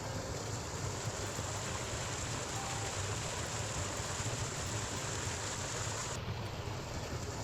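Rushing water of a flood-swollen mountain creek, a steady, even rush.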